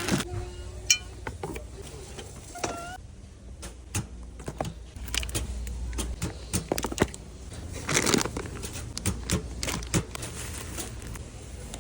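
Irregular clicks, knocks and clatter of grocery items and packaging being handled, with a denser rustling burst about eight seconds in.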